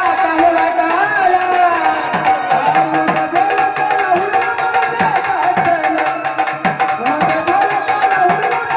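Instrumental Gondhal folk music. A sambal drum plays a rhythm whose low strokes drop in pitch, over a steady held melodic tone, with crisp high taps throughout.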